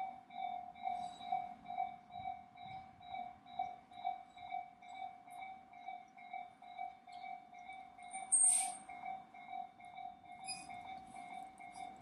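Japanese level-crossing warning bell ringing, a pulsing electronic tone of about two strikes a second that grows gradually fainter. Past the middle, a brief loud high-pitched squeal cuts in.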